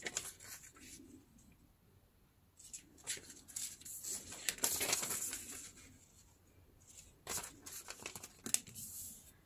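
Newspaper rustling and tearing in the hands, in three short, soft bouts with pauses between them.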